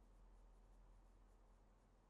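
Near silence: faint room tone with a low hum, and a few faint high ticks that die away.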